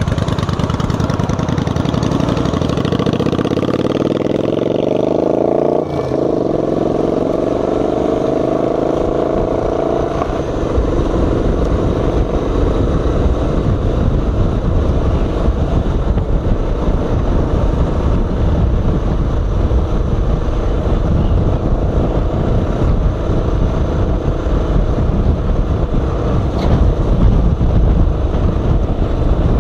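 Honda XR 250 Tornado's single-cylinder engine revving up as the motorcycle pulls away, rising in pitch for about ten seconds with a short break about six seconds in, at a gear change. It then runs steadily at road speed, with wind rumbling on the handlebar-mounted microphone.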